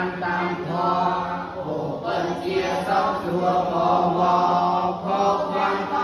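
A voice chanting a Khmer poem in a slow, drawn-out recitation, each line held and sliding in pitch, over a steady low tone.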